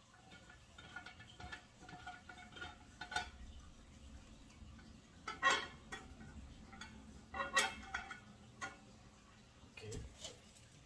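Metal ceiling light fixture being taken down: small clicks as its center screw is loosened, then louder metallic clatter about five and a half seconds in and again around seven and a half seconds as the fixture plate comes away from the ceiling.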